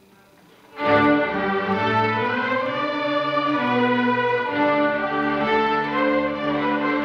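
Middle school string orchestra playing: after a brief hush, the full ensemble comes in loudly about a second in and carries on with sustained bowed chords.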